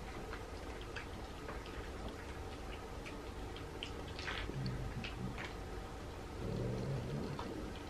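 Several cats eating kibble and pieces of rotisserie chicken off platters: scattered faint crunching and clicking of chewing, with a low growl twice in the second half.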